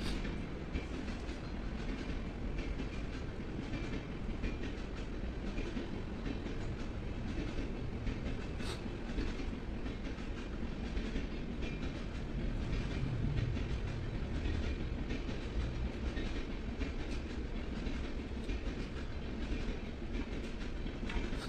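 Steady low rumbling background noise with faint clicks and taps scattered through it as hand tools work on the metal flange of a transformer tank, and one sharper click about nine seconds in.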